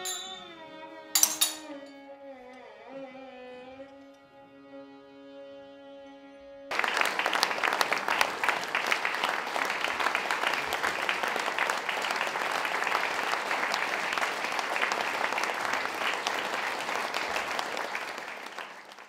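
Monks' music ends on held, gliding sung notes, with one clash of hand cymbals about a second in. After about seven seconds an audience breaks into steady applause, which fades out near the end.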